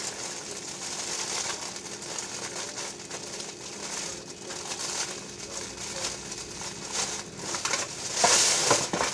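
Clear plastic oven bag crinkling and rustling as it is gathered and twisted shut with a twist tie. It grows louder near the end.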